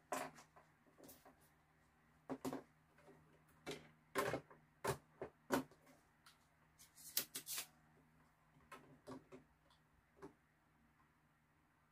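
A scatter of sharp clicks and light knocks from handling a circuit board and hand tools: the amplifier's potentiometer board being worked loose and a desoldering pump and soldering iron picked up. The loudest knocks come about four to five and a half seconds in, over a faint steady hum.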